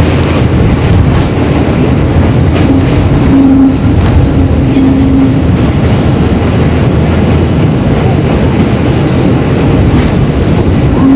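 New York City subway car running at speed through a tunnel, heard from inside the car: a loud, steady rumble of wheels on rail. A low hum rises out of it for a few seconds and again near the end.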